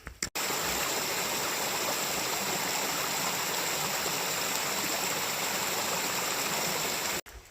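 Rushing stream water: a steady, even rush that cuts in abruptly just after the start and cuts off abruptly near the end.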